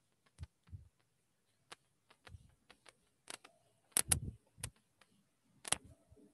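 A whiteboard being wiped clean by hand: scattered soft knocks and clicks of the eraser against the board, the loudest a few close together about four seconds in and one near the end.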